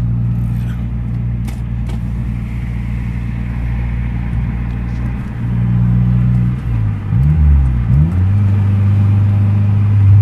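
A turbocharged Mazdaspeed 6 2.3-litre four-cylinder heard from inside the cabin while driving. It runs steadily, then pulls harder and louder from about five seconds in. Its note dips and climbs again around seven seconds in and settles into a steady, stronger run.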